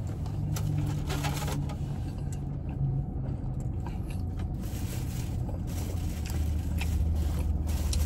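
Low steady hum of a car idling, heard from inside the cabin. Its pitch steps lower about halfway through, with a few faint clicks and rustles over it.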